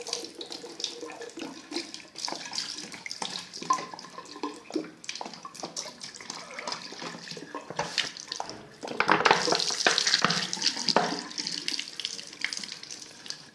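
Water running out of an upside-down plastic bottle through a hole about a centimetre wide in its cap, the whirlpool draining and splashing into a sink with gurgles and small splashes. It grows louder about nine seconds in.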